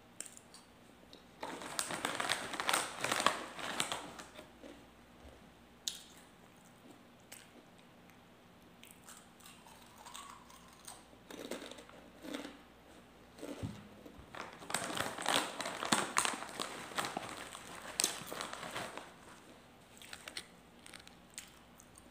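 Close-up eating sounds of a crisp snack: two long spells of crunching, one starting about a second and a half in and another around the middle to the end, with quieter chewing between.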